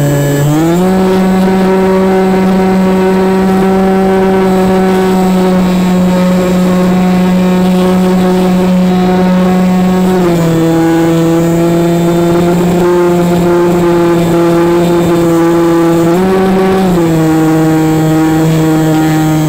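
Radio-controlled model plane's motor and propeller heard from on board in flight: a loud, steady buzzing hum under wind rush. It rises in pitch as the throttle opens about half a second in, drops to a lower pitch a little past halfway, and climbs briefly once more near the end.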